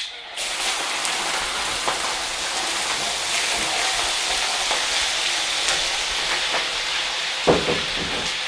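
Raw chicken pieces hitting very hot rendered chicken fat (schmaltz) in a karahi and frying hard: a loud, steady sizzle that starts suddenly about a third of a second in, with a few light clicks through it. A short pitched sound stands out near the end.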